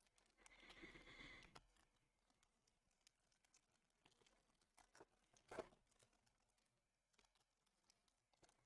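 Faint crinkling and tearing of a foil trading-card pack being pulled open, lasting about a second, followed by a faint short tap about five and a half seconds in.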